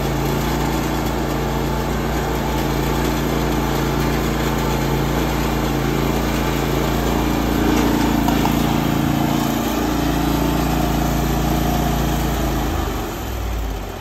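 Husqvarna 52-inch zero-turn mower's engine running steadily while the mower is driven up into a box truck. Its pitch dips slightly about ten seconds in, and the engine shuts off shortly before the end.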